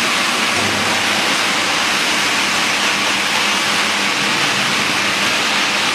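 Geocell welding machine running: a loud, steady hiss with a faint low hum underneath.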